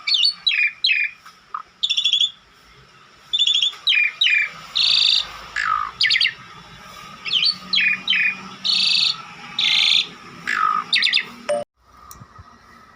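Jalak, an Asian starling, calling repeatedly: sharp whistled notes sliding downward, buzzy rattling phrases and harsh rasping calls in quick succession. The calling stops abruptly near the end.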